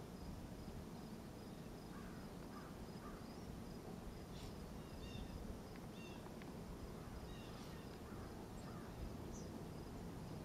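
Faint outdoor ambience: a low, steady background hiss with scattered short bird calls and chirps, starting about two seconds in.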